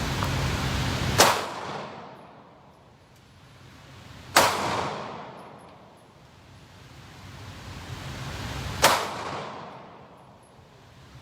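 Three single gunshots a few seconds apart, each a sharp crack with a short fading echo.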